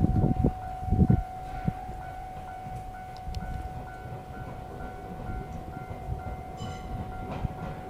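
Joshin Electric Railway local electric train arriving at a station: a low rumble with a few heavy knocks in the first second or so, settling into a steadier, quieter rumble as it slows. A steady high electronic tone runs throughout, and a brief high squeal comes about two-thirds of the way through.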